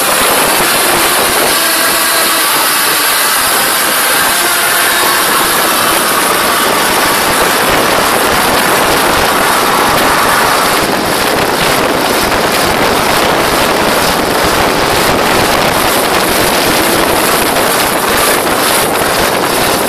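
Motorboat under way: a steady rush of wind and water over the engine noise, with uneven buffeting of wind on the microphone from about halfway.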